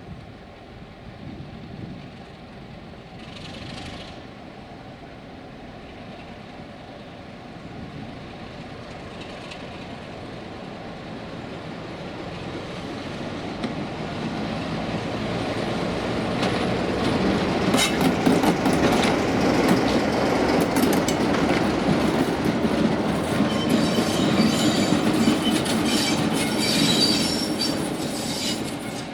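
Class 33 diesel locomotive hauling a rake of coaches, approaching and passing close by. It grows steadily louder to a long loud passage with rapid wheel clicks over the rail joints, then fades near the end.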